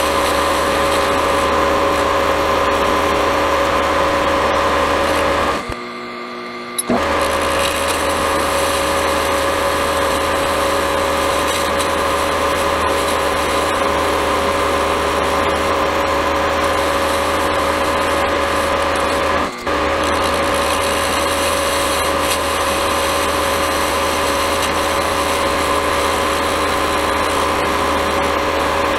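Milling machine running with a boring head taking light passes inside the bore of a sand-cast carburettor scoop: a steady motor hum with a constant tone. The sound drops out for about a second roughly six seconds in, and for an instant near twenty seconds.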